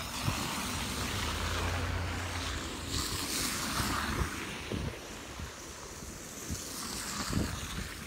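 Cars driving past close by through wet slush: a low engine hum and the hiss of tyres churning slush, the hiss loudest about halfway through. Wind buffets the microphone.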